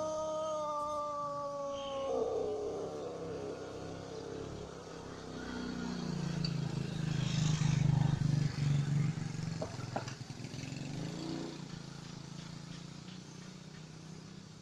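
The end of a Pelung rooster's long crow: a steady held note that drops in pitch and dies away about two seconds in. Then a low rumble swells through the middle and fades, louder than the crow.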